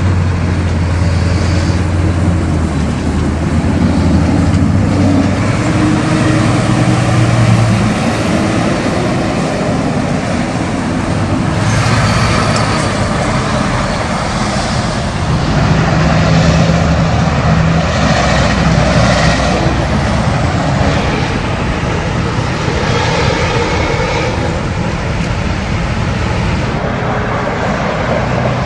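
Diesel semi trucks running as they pull past with other traffic: a steady low engine drone that changes pitch as different trucks go by, over road noise.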